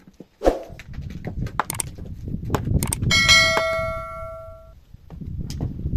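Rough stones being lifted, scraped and knocked against each other as they are set into a wall, with one loud metallic clang about three seconds in that rings for over a second.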